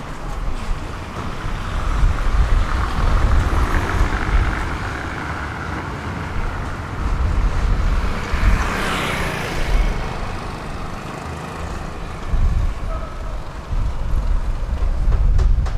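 Outdoor street sound with wind buffeting the microphone in uneven low gusts. A vehicle passes about eight to nine seconds in, its sound rising and fading.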